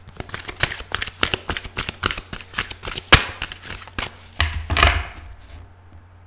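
A deck of oracle cards being shuffled by hand: a quick run of light card snaps and flutters, with a louder slap about three seconds in and a final flurry before the shuffling stops a little after five seconds in.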